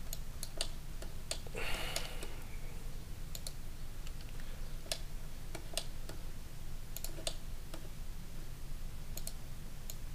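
Scattered clicks of a computer mouse and keyboard, a dozen or so at irregular intervals, over a steady low hum. About two seconds in there is a short rush of noise.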